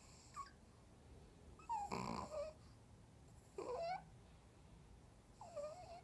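Small sleeping dog snoring in squeaky, wavering whistles, one with each breath, about four in all and roughly a second and a half apart; the one about two seconds in is the loudest and breathiest.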